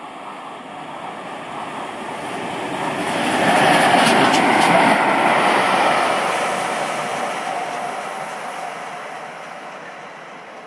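Peppercorn class A1 three-cylinder Pacific steam locomotive and its train passing through a station at speed, swelling to a peak about four seconds in and then fading away, with a few sharp wheel clicks as it goes by.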